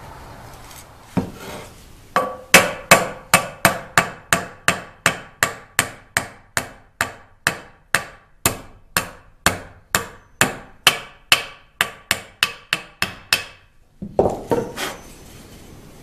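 A wooden mallet striking a cast aluminum bandsaw wheel in a steady run of about two dozen blows, two to three a second, each leaving a short metallic ring. A single knock comes just before, and handling clatter follows near the end.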